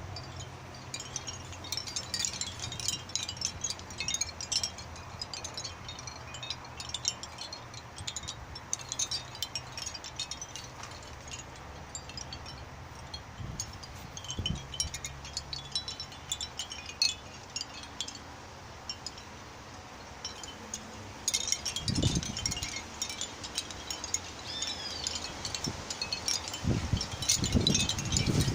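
Seashell wind chime clinking and jingling in gusty wind, the clatter growing busier about three-quarters of the way through. Low rumbles of wind gusts come through twice near the end.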